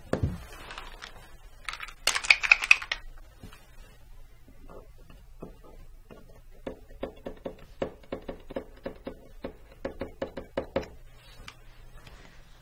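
Paint marker writing on a wooden surface: a run of short taps and scratches, about three or four a second, from about six seconds in. A brief, louder clatter comes about two seconds in.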